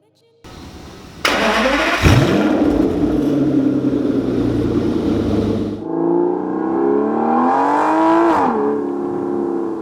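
Aston Martin DB9's 6-litre V12 through a modified exhaust, loud at high revs. After an abrupt cut, a second passage has the engine note climbing in pitch under acceleration, then dropping sharply about eight seconds in as the revs fall.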